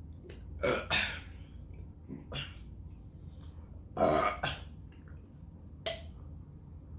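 Loud burping from a person eating: one burp about a second in and a longer, louder one about four seconds in, with a smaller sound between them.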